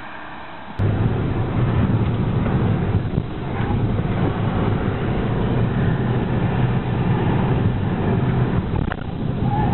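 Audi A3 1.4 TFSI driving at speed, heard from inside the cabin: a loud, steady drone of engine and road noise that cuts in suddenly about a second in. Before it, a faint, slightly rising engine hum from a car approaching in the distance.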